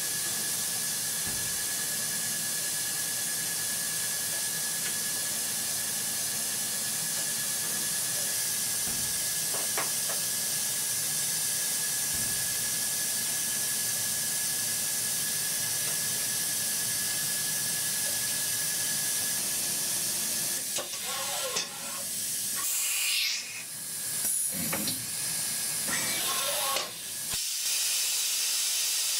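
Steady loud hiss from industrial machinery, with a thin, steady high whine under it. Over the last several seconds there are a few short squeals that slide in pitch, and the hiss briefly drops and comes back.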